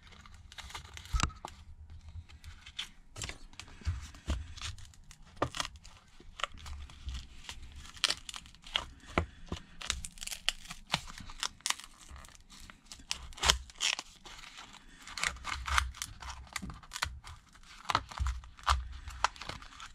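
Irregular crackling and small sharp snaps as a thin pry tool is worked under the cracked front glass and LCD of an LG Stylo 6, the adhesive and broken glass edges giving way, with low handling bumps.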